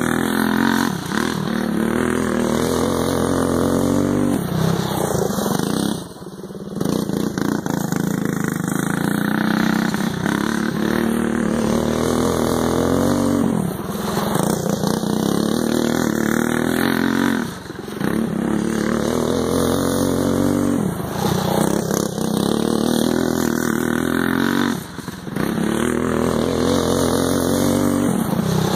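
Go-kart engine running hard as the kart laps a dirt track, its note climbing and falling over and over as it speeds up and slows for the turns, with a few short, deeper drops where the throttle comes off.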